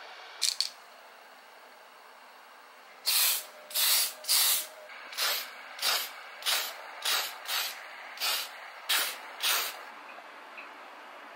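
Spray paint can sprayed in about eleven short bursts of hiss, the first few the loudest, starting about three seconds in, after two brief puffs near the start.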